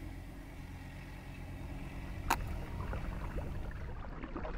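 Low steady hum of a distant engine, with a single sharp click about two seconds in.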